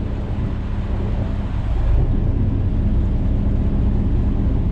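A tugboat's Caterpillar marine diesel running steadily at low power, a deep rumble with a constant hum above it.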